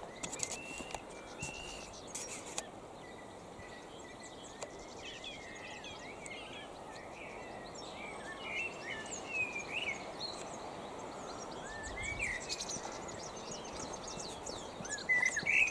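Small birds chirping and singing in short, gliding phrases over a steady outdoor background noise, with a few clicks in the first couple of seconds.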